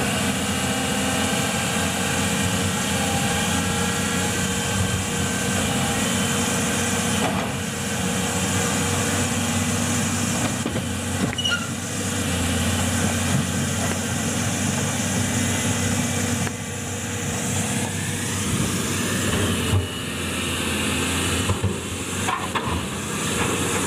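Hydraulic excavator's diesel engine running steadily under load, with a constant hiss over it.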